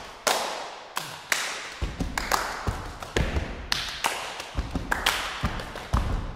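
Body percussion by four performers: sharp hand claps, including claps against a partner's hands, and slaps on the body, mixed with heavier low thumps. The strokes come several a second in an uneven, syncopated rhythm, each ringing in a reverberant hall.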